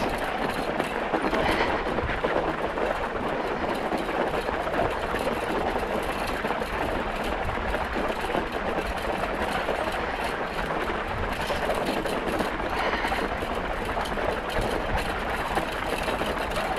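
Fat tyres of a kick scooter rolling over packed snow, a steady rolling rumble with no break.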